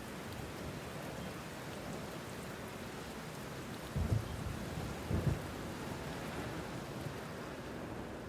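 Steady rain with two short low rumbles of thunder, about four and five seconds in.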